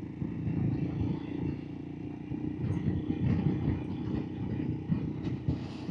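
Royal Enfield Himalayan's single-cylinder engine running on the move, a steady low rumble picked up by a helmet microphone.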